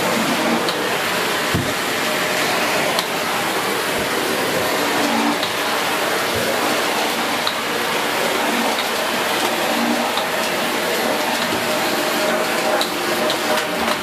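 Dyson Big Ball Animal (CY23) cylinder vacuum cleaner running steadily, its floor tool pushed back and forth over lino, with a few light knocks along the way.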